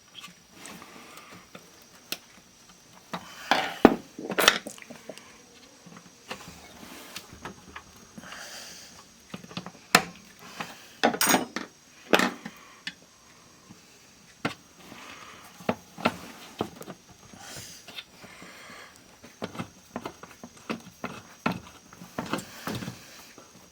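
Irregular clicks, knocks and short scrapes of small tools and parts being handled on a workbench during electronics repair work.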